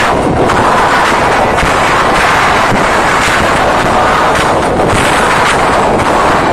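Concert crowd screaming continuously, loud enough to overload a phone's microphone into a steady, distorted wall of noise.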